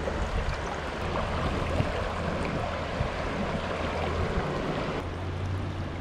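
Shallow river water rushing over a stony bed close to the microphone, as a steady rush.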